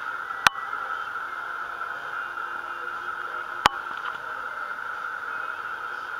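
Steady hiss of background recording noise, broken by two sharp clicks about three seconds apart.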